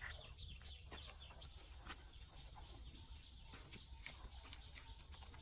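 A steady high-pitched insect trill that runs on unbroken, over faint rustling and light clicks of plants being handled.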